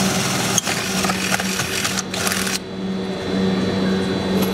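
Cordless drill/driver running in spurts as it drives screws into a golf cart roof; its motor hum stops and restarts twice.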